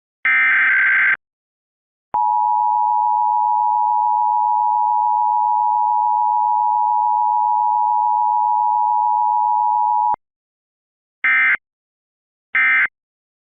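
Emergency Alert System test tones. First the last SAME header data burst, a buzzy digital warble of about a second. Then the two-tone EAS attention signal, held steady for about eight seconds, and three short end-of-message data bursts that close the alert.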